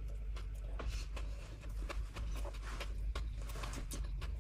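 Close-up mouth sounds of someone eating bread: many small, irregular clicks and smacks from chewing, over a low steady hum.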